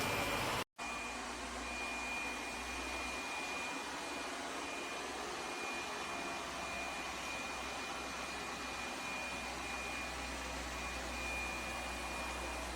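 Lefant M1 robot vacuum running steadily, an even suction hiss with a thin high whine and a low hum. The sound cuts out for an instant just under a second in.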